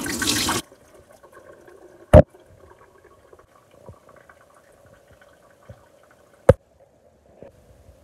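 Water and tapioca pearls poured from a glass bowl into a perforated metal strainer to drain, splashing and stopping about half a second in. Later come two sharp knocks about four seconds apart.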